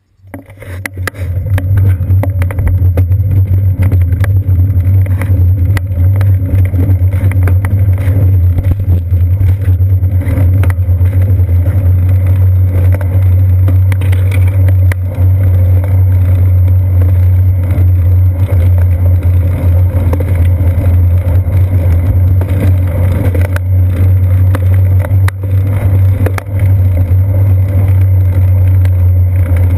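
Steady low rumble of wind buffeting and road vibration picked up by a seat-post-mounted GoPro camera on a moving bicycle. It comes in within the first second or two and holds steady, with many small knocks from bumps in the road.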